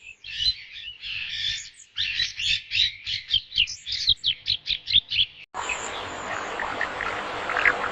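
A bird singing a fast series of short, high chirps, about three or four a second. About five and a half seconds in, the song cuts off suddenly into a steady hiss with a few faint chirps over it.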